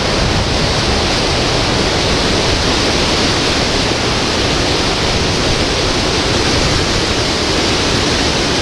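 Steady, loud hiss of hurricane rain and wind.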